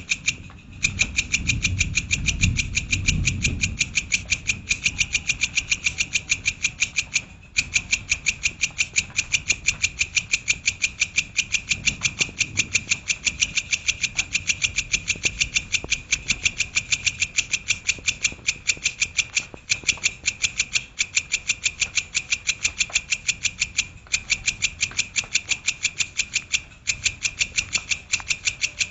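Belalang kecek (belalang kerik) insect calling: a steady train of sharp, high chirps, about four or five a second, broken by a few brief pauses. A low rumble sits under the first few seconds.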